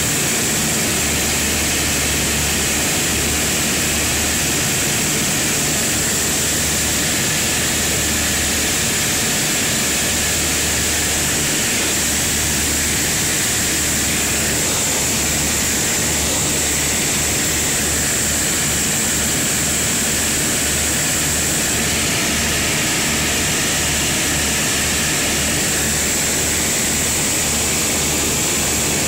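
Cabin noise of a Beechcraft BE-76 Duchess in flight: its twin Lycoming O-360 engines and propellers running in a steady loud drone, with an uneven throb in the low end and a steady high whine.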